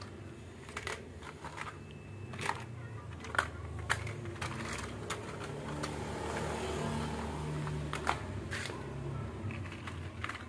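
Plastic toy vehicles being picked up and dropped into a plastic basket: scattered hard plastic clicks and clacks, a few in the first seconds and more near the end, over a low background hum.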